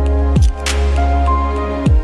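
Background music with a deep held bass and light percussive hits. A bass note slides down in pitch about halfway through and again near the end.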